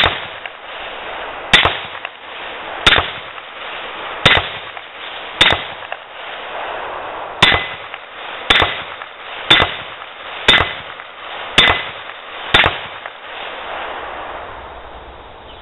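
A .223 rifle fires about eleven shots at an 8-inch AR500 steel plate, roughly a second apart with a longer pause in the middle. Each shot is a sharp crack with a short ringing tail from the hit steel, and the plate is bolted tight on its hanger.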